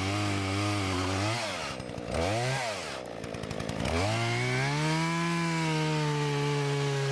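Husqvarna 240 two-stroke chainsaw running steadily, its revs dipping and rising twice. About four seconds in it is revved up and held at high revs, sagging slightly as the Oregon PowerSharp chain cuts into a log.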